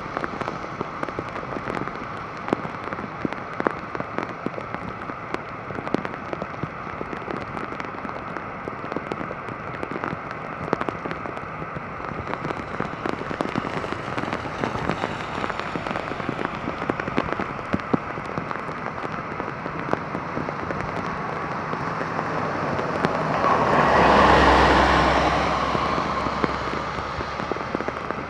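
Torrential rain pouring, with many sharp drops cracking against the microphone and gear. About three-quarters of the way through, a rushing swell of noise with a low rumble builds and fades over a few seconds.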